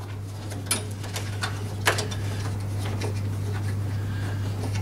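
A few light clicks and taps as a small plastic hand wheel is turned onto the lawn mower's handle bolt, over a steady low hum.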